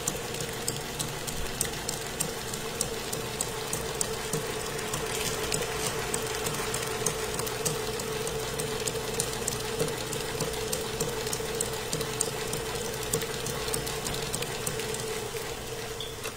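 Stand mixer running steadily with its flat beater, creaming a butter and egg mixture: a constant motor hum with a rapid light clicking. It cuts off at the end.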